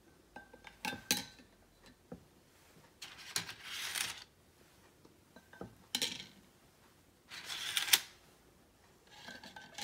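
Pieces of dry lasagna pasta clattering and rustling as they are picked from a pile on a wooden cutting board and dropped into small pots, in several short bursts.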